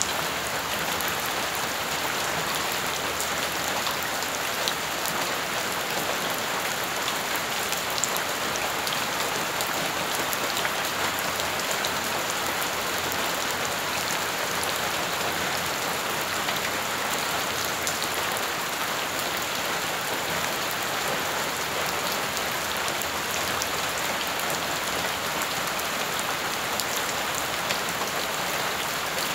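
Steady rain falling onto wet ground and puddles, a dense even patter of drops splashing.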